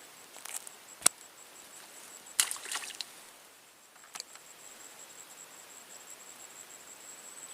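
A single sharp click about a second in, then a brief rustling clatter of handling sounds, over a steady high-pitched insect trill that comes in after about four seconds.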